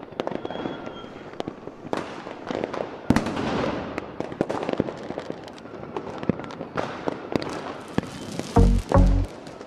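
Fireworks going off continuously: a dense run of sharp bangs and crackling from aerial shells and firecrackers. Near the end, two loud, deep thuds of electronic music come in.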